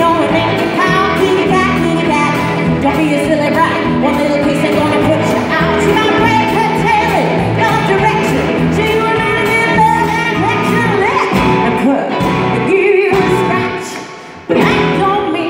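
Live band playing a song with acoustic and electric guitars and drums, and a woman singing. Near the end the music drops away for about a second, then the band comes back in sharply.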